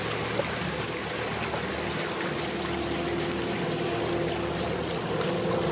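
Motor cruiser's inboard engine running steadily as the boat passes close by, with water churning and splashing along its hull.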